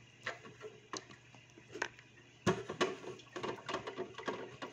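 A few scattered clicks, then a denser run of clicking and rattling from about two and a half seconds in: a plastic container of Hikari micro algae wafers being handled and shaken out over the tank.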